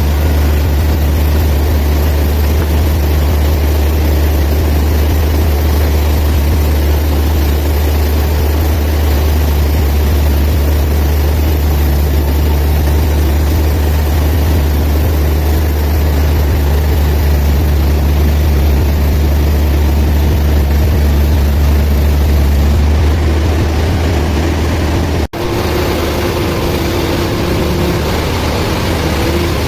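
Band sawmill machinery running with a loud, steady low drone. It cuts out for an instant about 25 seconds in, and after that a higher steady hum joins the drone.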